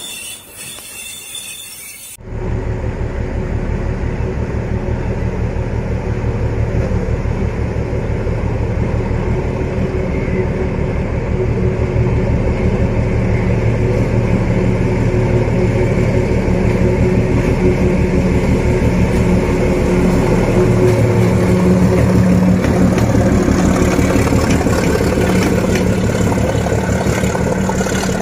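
D12E diesel locomotive engine running hard and steadily, with a deep pulsing throb, growing a little louder as it nears. For about the first two seconds there is quieter train-running noise instead, which gives way abruptly to the engine.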